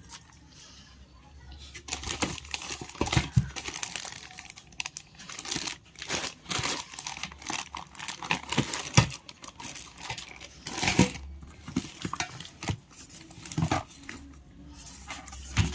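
Packaging being crumpled and handled: irregular crinkling and rustling with sharp crackles, starting about two seconds in.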